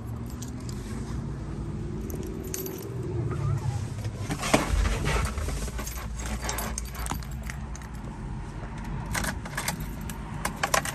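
A bunch of keys jangling, with sharp metallic clicks near the end as a key is fitted into the truck's ignition. A single thump comes about four and a half seconds in.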